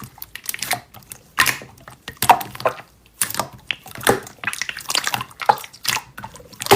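Slime being pressed and poked by hand, making irregular clicks and pops.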